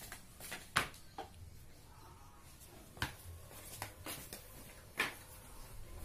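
Single shots from an LDT HK416D battery-powered water gel blaster: three sharp cracks about two seconds apart, with a few fainter clicks between them.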